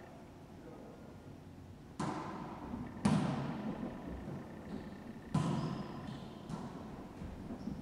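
Wallyball rally: a volleyball struck by hands and rebounding off the walls of an enclosed racquetball court, ringing with echo. Three sharp hits, the loudest about three seconds in, then a few lighter knocks near the end.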